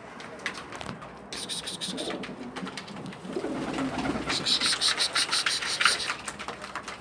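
Domestic pigeons cooing in a coop, low and soft through the middle. Then a quick run of rustling and ticking sounds through the second half.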